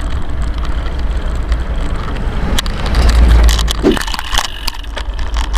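Wind buffeting the microphone of a rider on a moving bicycle, a heavy rumble that swells about three seconds in, over the noise and small clicks of the bike rolling on a rough track.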